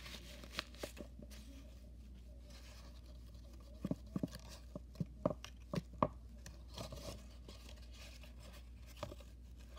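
Folded paper of an origami brick-wall tessellation being handled: scattered crinkles and crisp little taps as the creased paper is squeezed and shifted, thickest between about four and six seconds in.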